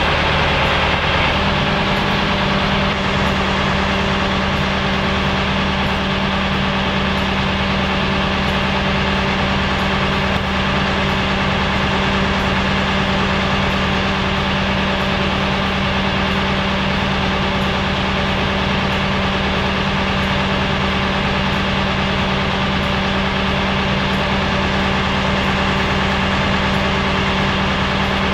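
Crane truck's engine idling steadily, its note stepping up slightly about a second in.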